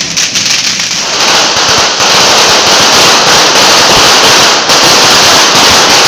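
Street fireworks going off: a dense, rapid crackling of firecrackers that grows much louder about a second in.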